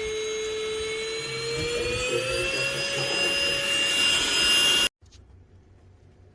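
Cordless handheld dust mite vacuum cleaner (Xiaomi LPMY-017 PRO) running with a high motor whine that slowly rises in pitch and grows louder, then cuts off suddenly about five seconds in.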